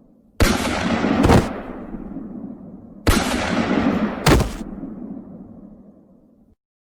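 Action sound-effect blasts, gunshots or explosions, in two pairs with about a second between the shots of each pair. Each pair trails off in a long fading rumble, and the sound cuts off suddenly near the end.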